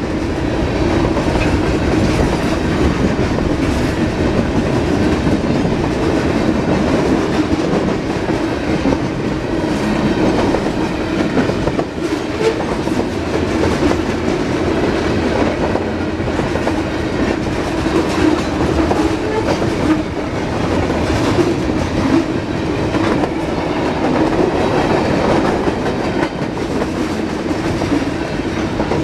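Norfolk Southern manifest freight train's cars rolling past: a loud, steady rumble of steel wheels on the rails with scattered clicks.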